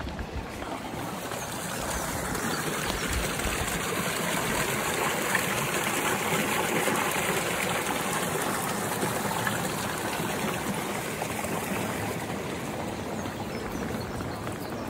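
Shallow brook trickling over stones in a narrow channel, the water noise growing louder for a few seconds and then easing off.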